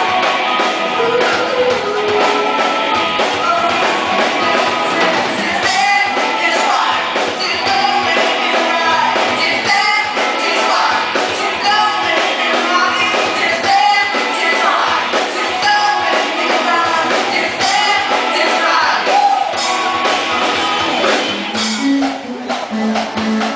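Live band playing loud amplified music with singing, a drum kit, timbales and electric guitar.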